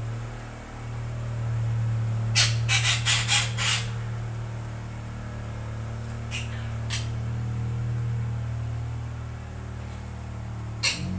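Parakeet (betet) calls: a quick run of about six harsh squawks some two seconds in, two short single calls a few seconds later, and one more near the end, over a steady low hum.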